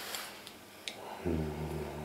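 A person's low, steady voice, held on one pitch like a drawn-out hum, starting a little past halfway, after a faint click.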